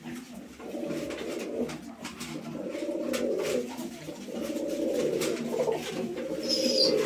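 Uzbek tumbler pigeons cooing: about four throaty coo phrases in a row, each lasting about a second. Light clicks of beaks pecking grain run underneath.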